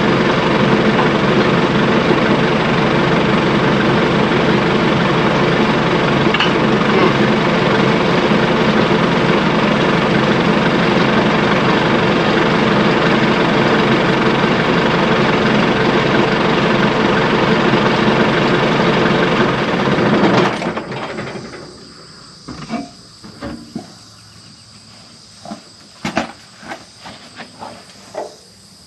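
Tractor engine running steadily, then shut off about two-thirds of the way through. After it stops, crickets chirp and there are a few sharp knocks.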